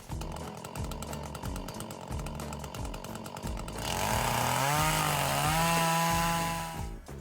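Chainsaw engine running with a fast, even patter, then revved up about four seconds in and held at high speed before cutting off near the end.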